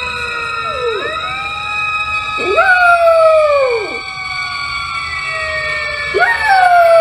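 Puppy howling: three long drawn-out howls, each rising quickly and then sliding slowly down.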